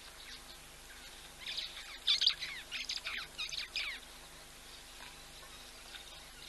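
Wild birds calling: a quick run of high, falling notes in three or four bursts, starting about a second and a half in and stopping about four seconds in.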